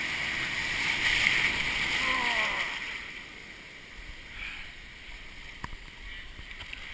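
Pacific Ocean surf: a wave breaks and rushes in with a loud hiss for about the first three seconds, then fades to a quieter wash.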